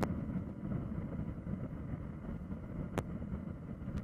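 Steady low rumble of wind noise, with two brief sharp clicks, one at the very start and one about three seconds in.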